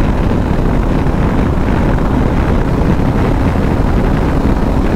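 Wind rushing over the microphone with the KTM 390 Adventure's single-cylinder engine running steadily at highway cruising speed.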